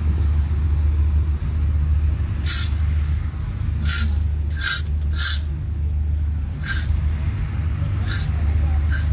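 A steady low rumble with about seven short hissing bursts at irregular intervals, starting a couple of seconds in.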